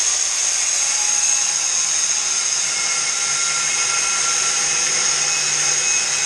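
Power tool running steadily at full speed, with a strong high-pitched whine over a hiss, as when cutting metal.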